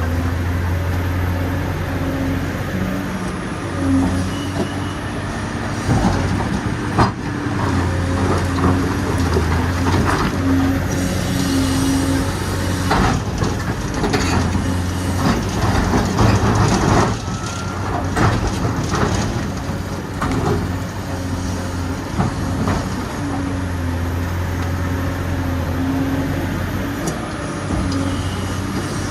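Recorded sound of a full-size excavator's diesel engine running, its note stepping up and down as the hydraulics take load, laid over the scale machine. Scattered knocks and scraping of dirt and stone come through several times.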